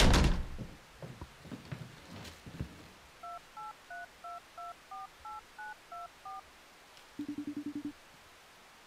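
A loud thump, then a phone's keypad beeping as a number is dialled: about eleven short touch-tones in a row. Near the end the ringing tone sounds on the line as the call goes through.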